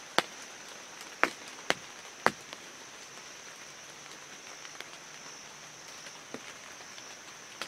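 Rain on a pop-up hunting blind: a soft steady hiss with a few sharp drops tapping on the blind's fabric, mostly in the first couple of seconds, over a faint steady high-pitched hum.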